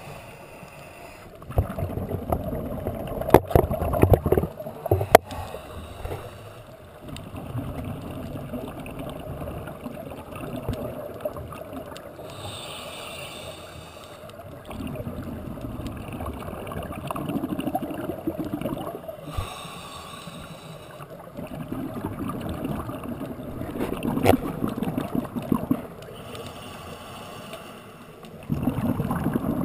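Scuba diver breathing through a regulator underwater: a short hiss on each inhale, then a longer rumble of exhaled bubbles, the cycle repeating about every seven seconds. A few sharp knocks in the first seconds.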